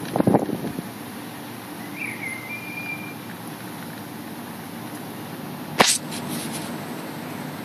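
Wind buffeting the microphone in the first second, over a steady outdoor hiss. A short high chirp comes about two seconds in, and a single sharp click about six seconds in.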